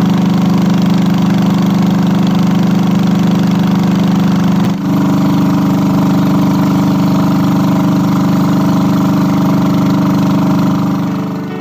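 A small engine running steadily, with a brief dip about five seconds in, after which it runs at a slightly higher pitch.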